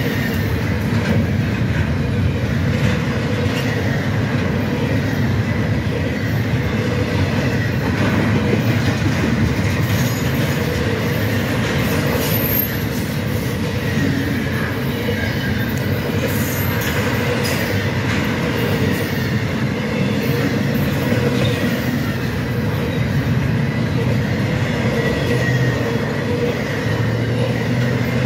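Double-stack intermodal freight train passing close at speed: a steady, continuous rumble of steel wheels on rail from the container cars.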